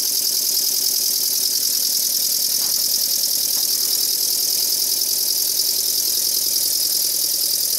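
Blackgates twin oscillating-cylinder model steam engine running on compressed air, its rear engine dragging the coupled front engine. It runs fast and steadily, with rapid even exhaust beats over a continuous hiss of escaping air.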